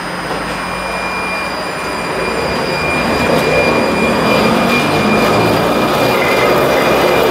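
Vintage Trieste–Opicina tram car rolling slowly past on its rails. Its rumble and rattle grow louder about three seconds in as it draws level, over a thin, steady high whine from the wheels and running gear.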